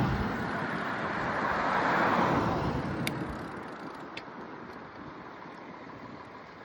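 A passing motor vehicle: a rush of road noise that swells about two seconds in and then fades away, with a couple of light ticks as it dies down.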